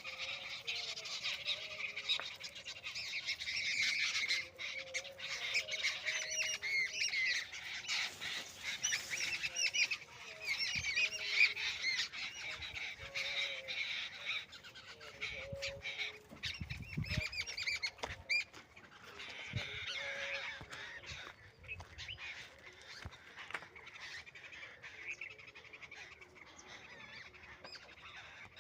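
Many birds chirping and calling at once in a morning chorus. The chorus is busiest in the first half and thins out later, with some lower calls among the high chirps and a brief low rumble past the middle.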